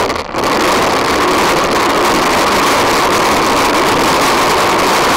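PlasmaCar ride-on toy's wheels rolling fast over rough asphalt right beside the camera, a loud steady rolling rumble that comes up suddenly just after the start.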